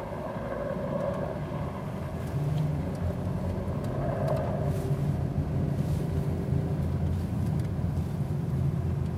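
Car running, heard from inside the vehicle: a steady low engine and road hum that grows louder about two seconds in.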